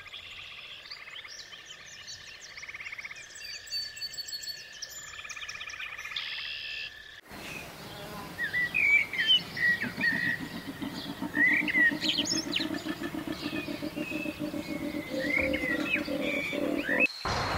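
A beaver whining: runs of high, pulsing calls for about seven seconds. Then, after an abrupt cut, birds chirping, with a low, rapid pulsing sound underneath.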